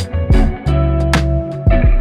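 Background music led by guitar over a bass line, with a regular drum beat.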